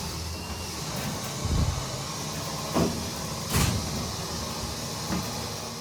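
Steady vehicle rumble with a few sharp thumps, the strongest about a second and a half, just under three, and three and a half seconds in.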